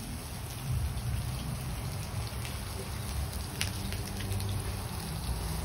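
Pork belly and sausages sizzling on a grill pan over a gas burner, an even crackle over a steady low rumble. Metal tongs click a few times as the meat is turned.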